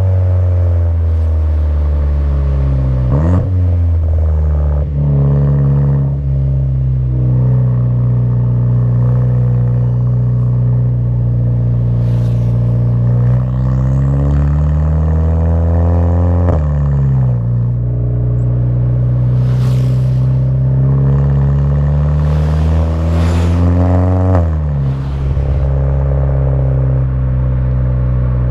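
Turbocharged 2.0 TSI four-cylinder of a Mk6 Jetta GLI breathing through an aftermarket downpipe and cat-back exhaust, pulling through the DSG gearbox's gears. The engine note climbs slowly and then breaks suddenly with a short burst at each shift, three times: the DSG shift 'fart'.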